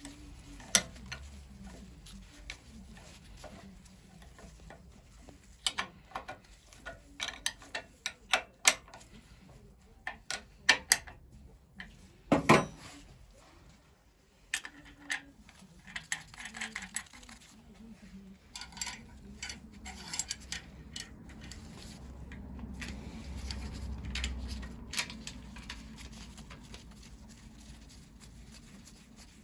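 Small metal parts being handled, clinking and tapping irregularly, with one louder ringing clink about twelve seconds in.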